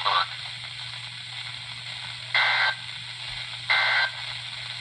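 Two short warbling data bursts of an Emergency Alert System SAME end-of-message code on a NOAA weather radio, about a second and a half apart, over steady radio hiss and hum. They signal that the alert broadcast has ended.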